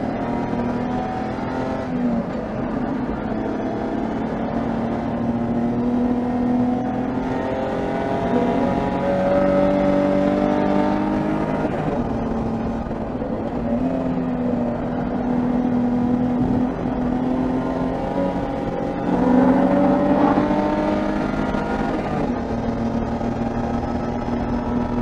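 BMW E30 325is race car's 2.5-litre straight-six at racing speed under load. Its pitch climbs and drops back again and again as the throttle goes on and off.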